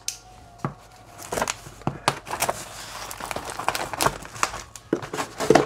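Folding knife slitting the packing tape on a cardboard box: crackling and scraping of tape and cardboard with irregular sharp taps and clicks, busiest from about a second in.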